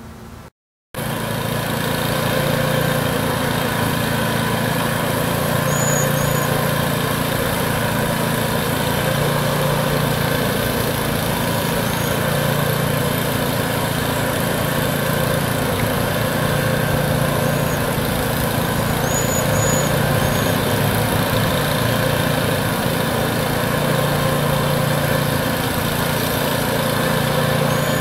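Steady drone of a running motor, starting just under a second in after a brief dropout. Faint, thin, high calls of waxwings come through a few times.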